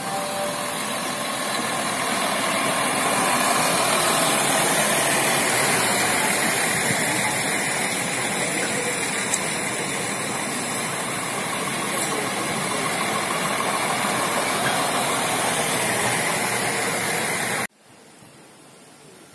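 Diesel multiple-unit train running past close by along a station platform, its engines and wheels making a steady loud rush of noise that swells a few seconds in. Near the end it cuts off abruptly to a much quieter background.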